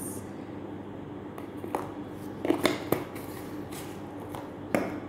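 Light clinks and knocks of a metal spoon and plastic spice jars being handled over a glass baking dish, with a cluster of sharp knocks about two and a half seconds in and one more near the end.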